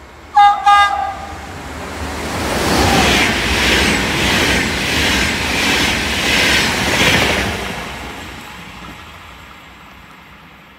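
Trenitalia double-deck regional train sounding two short, high horn blasts, then passing through the station at speed. Its wheels clatter in a steady rhythm that builds, holds and fades away as it goes by.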